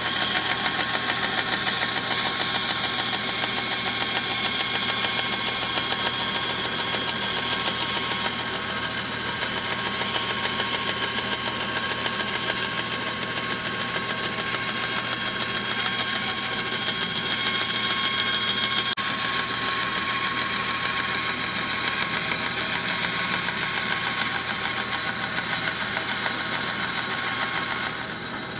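Band saw running steadily while cutting a pine board: a continuous motor hum with the blade noise of the cut over it.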